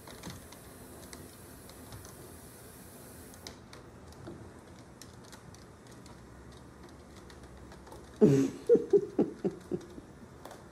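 A Persian kitten's claws scrabbling and catching on a cat tree as it climbs. Faint scattered ticks are followed, near the end, by a quick run of about seven loud scratches.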